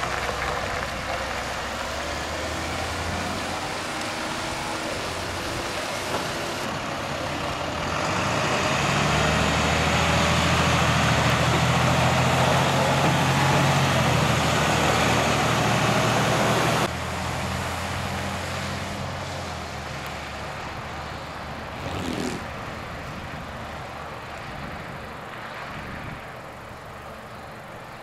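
Road-treatment dump truck's engine running over a steady hiss. It grows louder and higher in pitch for several seconds in the middle, then drops back suddenly.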